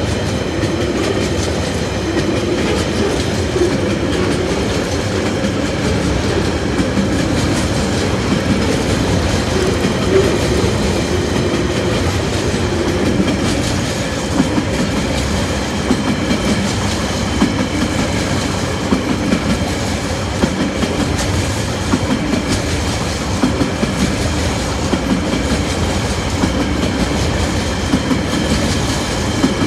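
Tasrail freight train's container flat wagons rolling past at speed. The wheels clack sharply over the rail joints, more often in the second half.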